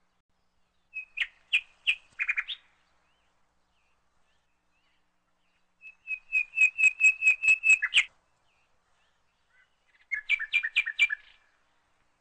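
A small bird singing: three short phrases of rapid repeated chirps, each lasting about one and a half to two seconds, with pauses between.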